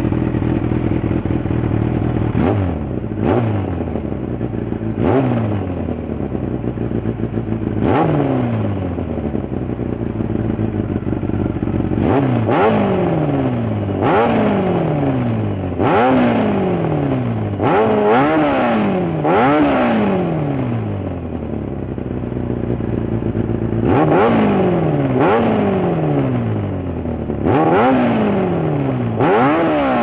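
1994 Kawasaki ZX-9R inline-four idling through a Vance & Hines exhaust with its baffle removed. About a dozen quick throttle blips each rise sharply and fall back to idle, bunched in two runs with a short stretch of plain idle between them. The pipe's tone is somewhat nasal but fairly deep.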